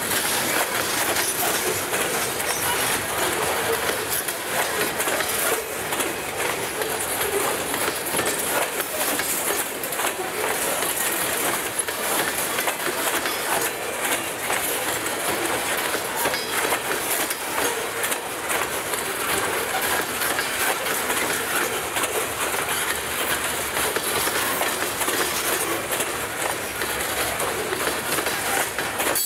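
Loaded covered hopper cars of a freight grain train rolling past, their steel wheels on the rails making a steady noise with frequent short clicks.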